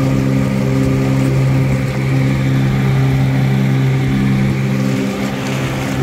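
An engine running at a steady speed, a constant low hum with its overtones and no rise or fall in pitch.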